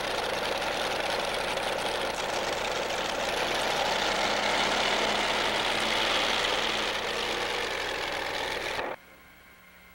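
Multi-engine modified pulling tractor running at low revs, a steady engine rumble that grows a little louder midway, then cuts off suddenly near the end.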